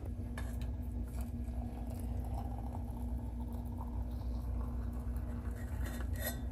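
Water poured in a thin stream from a stainless steel saucepan into a ceramic teapot, over a steady low hum.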